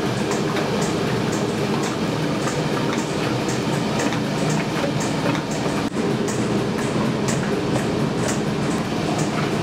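Steady running of workshop machinery in a ceramics factory: a constant low rumble with quick, irregular clicking over it, breaking off for an instant about six seconds in.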